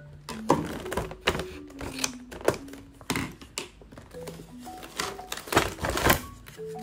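Scissors snipping through a paper label band on a hard plastic fruit clamshell, with sharp clicks and crackles of the plastic being handled in two clusters, over soft background music with a mallet-like melody.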